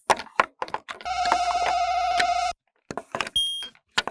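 Plastic toy building bricks clicking and knocking as they are pulled apart. They are followed by a steady electronic ringing tone lasting about a second and a half, then a brief high beep and a few more clicks near the end.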